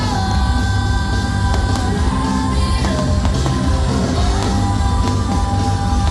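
Loud rock music with a singer holding long notes over a heavy, steady bass.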